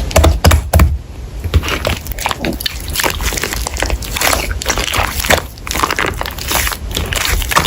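Slime being squished and pressed by hand, giving a quick, irregular run of sticky wet pops and clicks.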